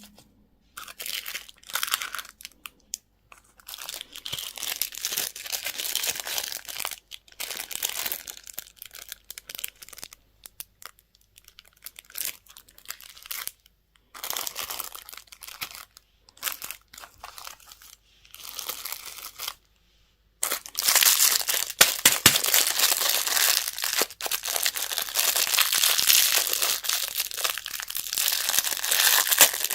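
Candy wrappers being crinkled and torn open in short bursts with abrupt silent gaps. From about two-thirds of the way in, the crinkling becomes continuous and louder.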